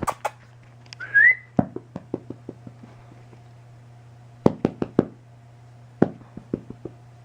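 A person calling a cat: one short rising whistle, then clusters of sharp clicks in three groups, each a quick run of several clicks.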